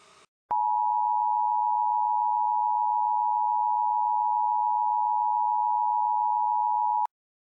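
A single steady electronic broadcast tone. It starts about half a second in, holds one pitch at an even level for about six and a half seconds, and cuts off suddenly.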